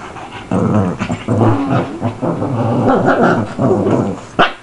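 Shih Tzus growling as they wrestle and fight, a continuous rough growling that starts about half a second in. One short sharp sound near the end.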